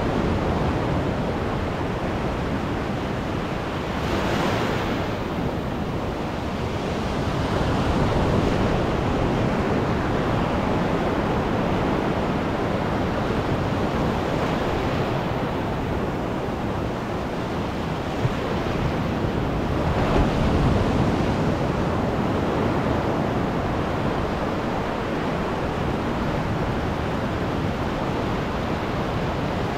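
Ocean surf breaking and washing up a sandy beach close by, a continuous rush of water that swells every few seconds as each wave runs in.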